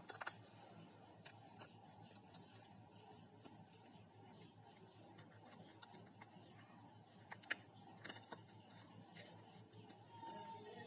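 Faint, scattered clicks as the cracked touch glass of a Lava A97 phone is pried loose from its frame.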